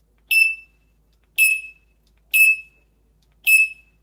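Parrot mimicking an electronic alarm beep: four short, loud, high-pitched beeps about one a second.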